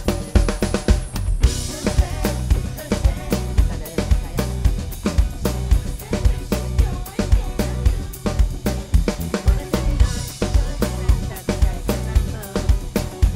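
PDP drum kit with a DW snare and Zildjian K cymbals played in a steady, busy groove of kick, snare and hi-hat under a live band's held keyboard and bass notes. Cymbal crashes wash in about a second and a half in and again around ten seconds in.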